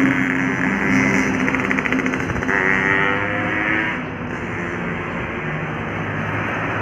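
Road traffic passing: motor vehicle engines running on the road, a little quieter about four seconds in.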